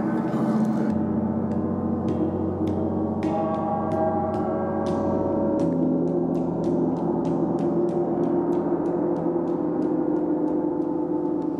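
Gongs ringing in a sustained, layered wash of tones, kept going by light mallet strikes about three a second.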